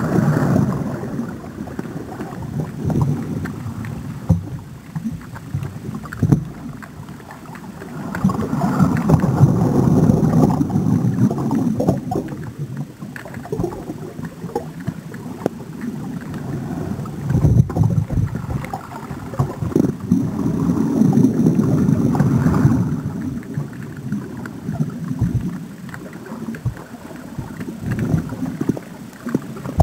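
Muffled underwater sloshing and rumbling of seawater around a handheld underwater camera. It swells and fades every several seconds, with a few low knocks.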